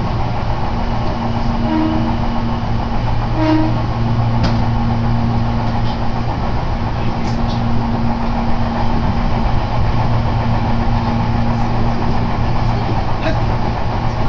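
Running noise heard from inside a moving Meitetsu Nishio Line electric train car: a steady rumble of wheels and running gear under a constant low hum.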